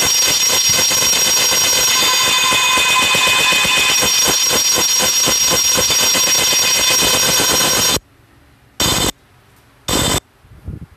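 Black MIDI playback through a soundfont: thousands of synthesized notes at once, heard as a loud, dense, buzzing wall with a fast even pulse. About 8 s in it drops out to near silence, with two short bursts of notes before it swells back in at the end.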